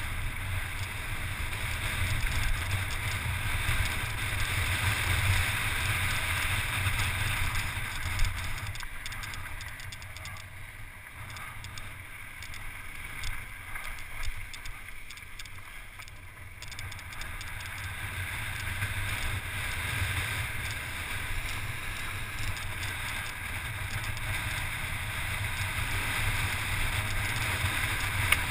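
Wind rushing over an action camera's microphone as a mountain bike rolls fast downhill on loose gravel, with tyre and rattle noise and a few sharp knocks. It eases off for several seconds around the middle, then builds again.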